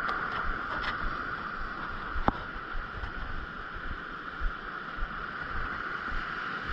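Sea surf washing against the rocks, with wind on the microphone: a steady rushing, broken by one sharp click a little over two seconds in.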